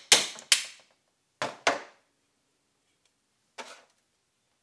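Hammer blows on a rust-frozen U-joint cap in a Ford Super Duty front axle shaft, struck to work the seized cap loose. There are two quick, sharp metallic strikes at the start, two more about a second and a half in, and a lighter knock near the end.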